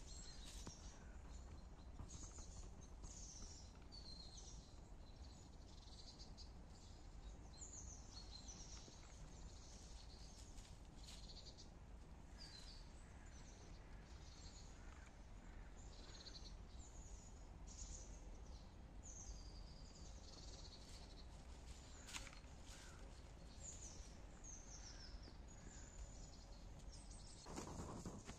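Small birds chirping and singing in woodland over a faint steady low background noise, with a louder rustle near the end.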